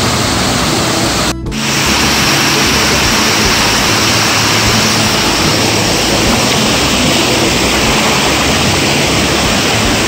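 Mountain stream rushing and splashing over rocks and a small waterfall close to the microphone, a loud, steady rush. It cuts out for a moment about one and a half seconds in.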